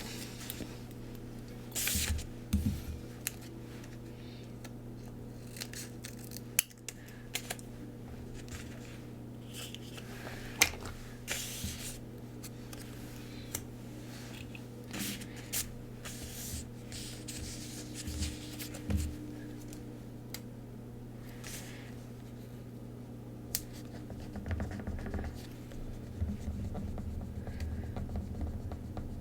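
Hands working a transfer sticker sheet against a planner page: scattered light taps, snips and short scratchy strokes over a steady low hum.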